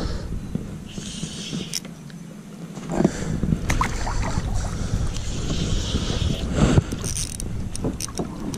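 Water sloshing against a fishing kayak's hull, with wind rumbling on the microphone and a few sharp knocks, the loudest about three seconds in and again near seven.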